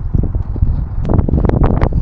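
Wind buffeting a phone's microphone as a steady low rumble, with a quick run of sharp clicks and knocks from about a second in.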